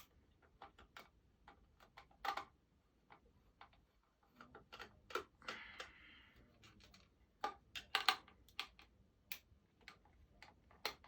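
Irregular small clicks and taps as a screwdriver undoes the screws holding a speaker in an animatronic figure's plastic housing, with a short scrape just past the middle.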